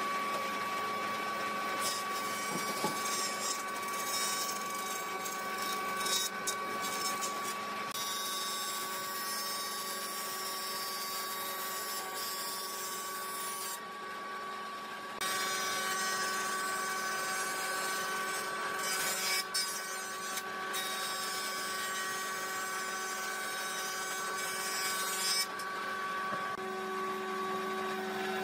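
Combination jointer-planer running with a steady whine while a wooden board is planed, pushed across the jointer and then fed through the thicknesser. The sound shifts abruptly a few times.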